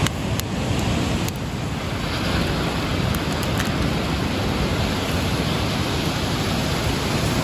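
Steady rumbling noise of wind and surf on a beach, with wind buffeting the microphone and a few faint clicks in the first few seconds.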